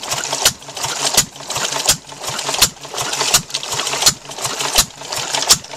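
An old stationary engine running and belt-driving a small reciprocating water pump: a sharp knock about every three-quarters of a second, with a fast mechanical clatter in between.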